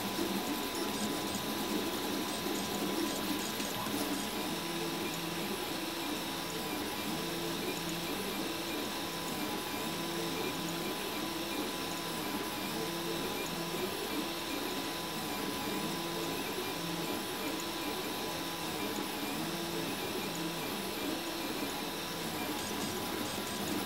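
RepRap Huxley 3D printer's stepper motors whining as the print head moves back and forth laying down filament. The pitch jumps between short notes with each change of speed and direction.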